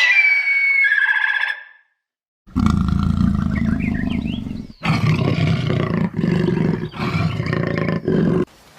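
A high pitched animal call for under two seconds, then a lion roaring and growling, deep and rough, in four bouts.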